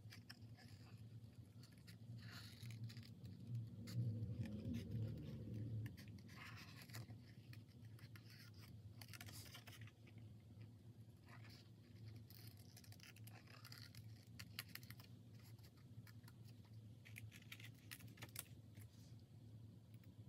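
Faint snipping and scratching of small craft scissors (Stampin' Snips) fussy-cutting a stamped image out of cardstock, with paper handling, over a low steady hum.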